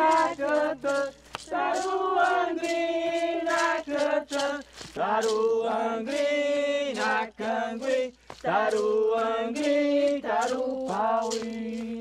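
Voices singing a chant in long held notes, phrase after phrase with short breaks in between.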